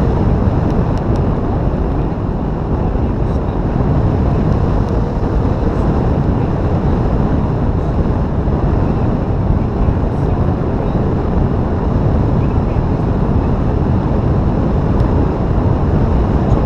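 Steady rush of wind buffeting a camera microphone mounted on a hang glider's wing in flight, the airflow of the glider's forward speed.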